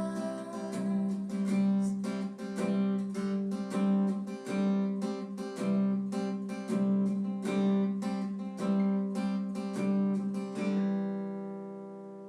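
Background music: an acoustic guitar strumming chords in a steady rhythm, ending on a last chord that rings out and fades near the end.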